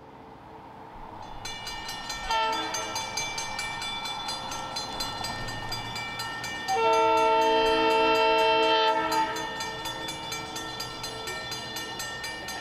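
Multi-note diesel locomotive horn on a freight train led by an Alco S2, blowing a long blast from about two seconds in that gets louder for about two seconds near the middle, then stops. A fast, even ticking runs underneath throughout.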